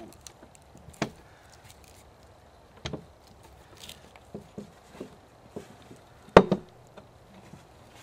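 Fiskars PowerGear bypass loppers shearing through thin branches: a series of separate sharp cracks and knocks of wood, with the loudest crack about six seconds in.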